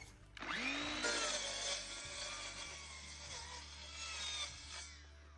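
A power saw running and cutting into wood, its whine sliding in pitch as it loads up. It starts about half a second in and stops about five seconds in.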